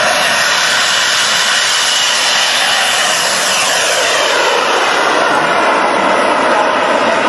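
Radio-controlled model Airbus A380's four jet engines running at full takeoff power: a loud, steady rushing whine, with the whine falling in pitch from about halfway through as the model lifts off and climbs away.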